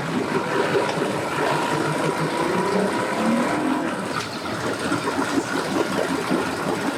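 Outboard boat motors running steadily, with a thin steady whine above the engine noise.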